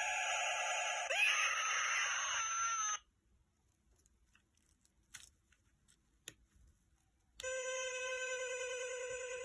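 Eerie wavering electronic tones with a pitch slide about a second in, cutting off abruptly about three seconds in. Near silence follows with a couple of faint clicks, then a steady, slightly wavering high electronic tone starts about seven seconds in.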